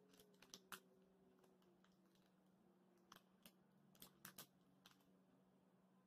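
A chocolate bar's wrapper faintly crinkling as it is peeled back and handled. It gives a few short, sharp crackles near the start and another cluster about three to five seconds in, over a faint steady hum.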